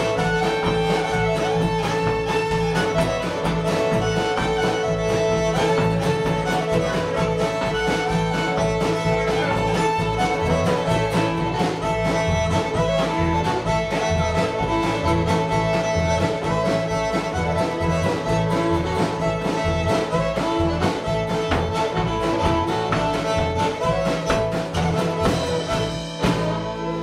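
Live bluegrass band playing: fiddle, acoustic guitar and upright bass, with a steady plucked-bass pulse under the fiddle melody. The tune stops just before the end.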